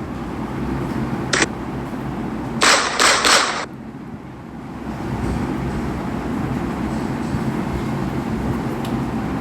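Gunshot sound effects played from a prank-sounds app on a phone: one short shot about a second and a half in, then a quick burst of about three shots around three seconds in. A steady low rumble of background noise fills the second half.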